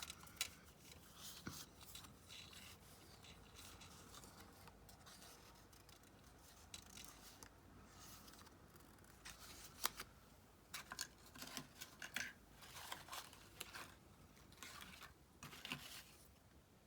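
Scissors cutting paper: a scattering of quiet snips and paper rustles, busiest in the second half.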